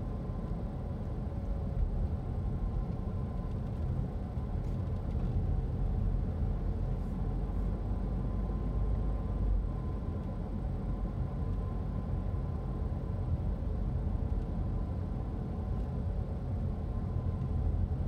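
Car cabin noise while driving slowly: a steady low engine and road rumble, with a faint steady whine above it.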